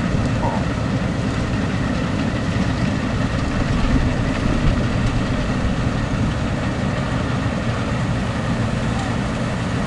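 Bizon Z056 combine harvester at work cutting grain: its diesel engine and threshing machinery drone steadily.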